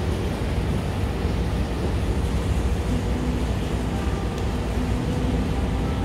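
Supermarket background noise: a steady low rumble, joined about three seconds in by faint steady tones.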